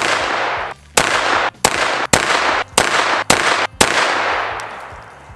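Seven pistol shots fired at a brisk pace, roughly half a second to a second apart, each followed by a ringing echo. The echo of the last shot dies away over about a second and a half.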